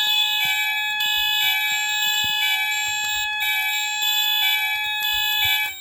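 Several fire alarm sounders going off together, driven by a 1989 Moose Z900 alarm panel's bell circuit. They make a loud mix of steady and alternating tones, with some pitches switching about once a second, and cut off suddenly near the end.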